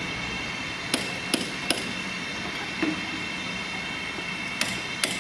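Sharp metal-on-metal knocks, three in quick succession about a second in and two more near the end, from work on top of a steam locomotive's boiler. Under them runs the steady hiss of escaping steam.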